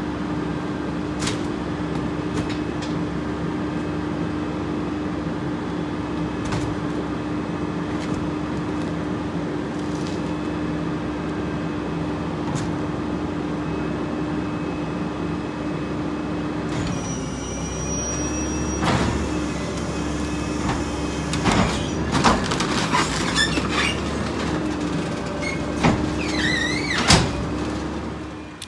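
Rear-loader garbage truck running with a steady mechanical hum. From a little past halfway a run of sharp clanks and cracks sets in, with a brief wavering squeal near the end.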